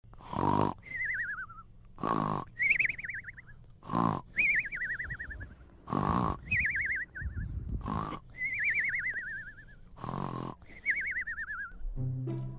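Cartoon snoring sound effect: a snort followed by a falling, warbling whistle, repeated six times about every two seconds. Bowed-string music starts near the end.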